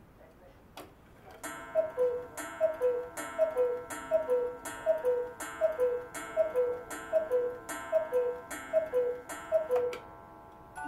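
Hones eight-day musical cuckoo clock calling the hour: after a single click, a two-note cuckoo call, high then low, each paired with a ringing strike, repeats steadily about a dozen times at roughly one and a half a second.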